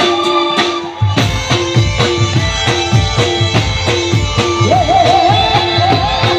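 Live folk music played loud through a PA: a steady, quick drum beat under a sustained keyboard melody. The beat breaks off briefly about a second in and comes straight back, and a wavering, ornamented melody line enters near the end.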